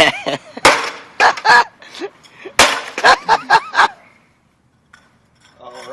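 A laptop being smashed with a rapid series of about eight hard blows, its plastic casing cracking and breaking, then stopping about four seconds in.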